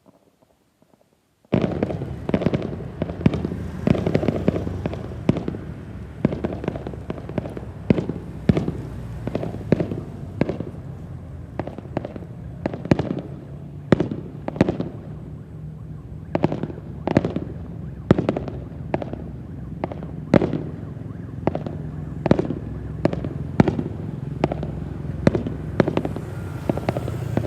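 Fireworks display: a rapid, irregular barrage of sharp bangs over a continuous low rumble, starting abruptly about a second and a half in.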